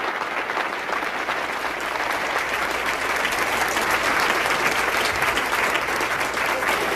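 A large audience applauding, a dense crackle of many hands clapping that grows a little louder toward the middle.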